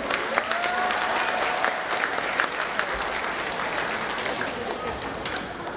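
Audience applauding, with the clapping thinning out toward the end. One voice gives a long held cheer through the first couple of seconds.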